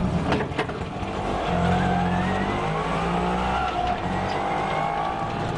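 Auto-rickshaw engine pulling away and accelerating, heard from inside the open cab: a steady low drone with a whine that rises slowly in pitch from about a second and a half in, over road noise.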